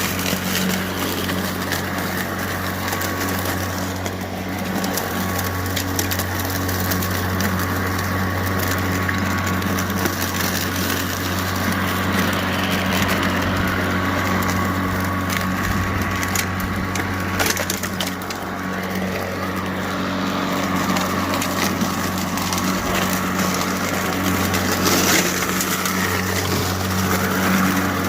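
Greenworks 80V battery-powered push mower running steadily in mulching mode, its blade giving a constant low hum while dry leaves crunch and crackle as they are chopped up under the deck.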